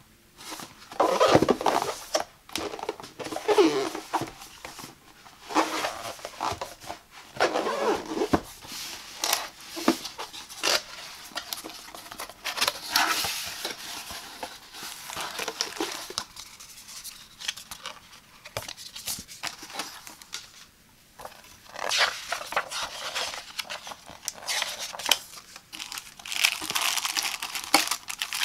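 Hands opening a cardboard product box and handling the packaging inside: irregular scraping, rustling and tapping of cardboard and paper, with plastic wrap crinkling near the end.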